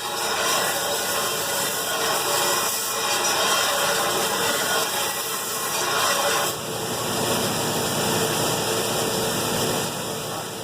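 Belt grinder grinding the bevels into a steel sword blade: a steady, loud grinding hiss that shifts slightly about six and a half seconds in.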